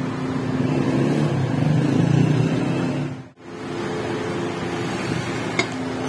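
Steady mechanical hum, like a motor running, broken off sharply for a moment about three seconds in, with a light metallic click near the end.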